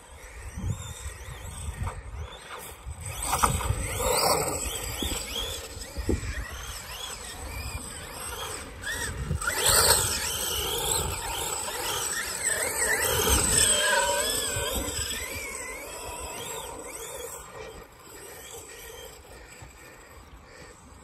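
Losi DBXL-E 2.0 electric RC buggy's brushless motor and drivetrain whining, rising and falling with the throttle as it churns through deep sand, loudest in the middle as it passes close by. Wind rumbles on the microphone.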